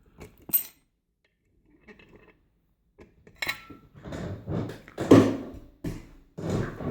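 Schlage key-in-knob lock being taken apart by hand, its metal parts clicking and clinking: a few sharp clicks, a click with a short metallic ring about three and a half seconds in, then a run of louder handling and scraping noises.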